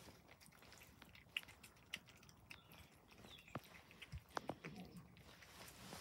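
Several cats chewing and lapping soft wet cat food from a plate: faint, scattered small wet clicks and smacks.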